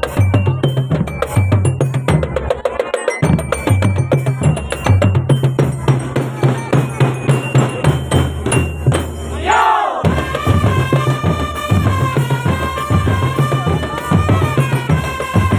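Marching drum band playing: bass drums beat a steady pattern under snare and bell-like hits. About ten seconds in, a swooping glide leads into held melody notes over the drums.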